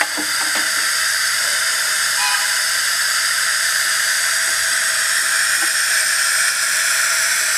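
Steady hiss of steam escaping from a 0-6-0 7¼ in gauge live steam locomotive standing in steam, the vapour venting from the top of the boiler ahead of the cab.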